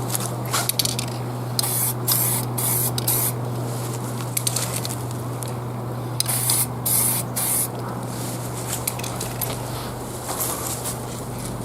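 Aerosol spray-paint can spraying brown paint in a series of short hissing bursts, each a second or less, clustered in the first few seconds and again around six to seven seconds in.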